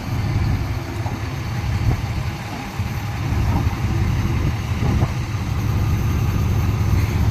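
BAT-M engineering vehicle's diesel engine running steadily as a low drone while it powers the crane, getting a little louder about three seconds in.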